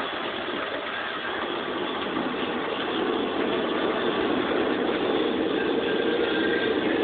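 Automatic car wash machinery working over the car, heard from inside the cabin: a steady rushing noise that grows louder about three seconds in.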